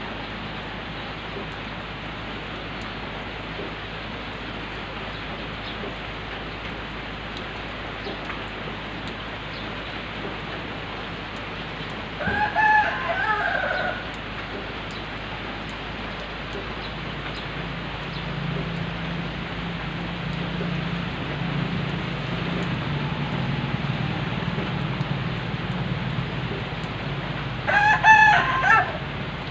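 Steady rain falling, with a rooster crowing twice: once about twelve seconds in and again near the end. A low hum builds in the second half.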